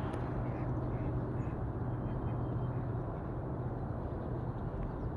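Steady outdoor background noise with a constant low hum, and a few faint bird calls.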